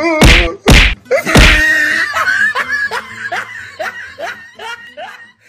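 People laughing hard: three loud sudden bursts in the first second and a half, then a run of short falling 'ha' sounds, about three a second, that fade away.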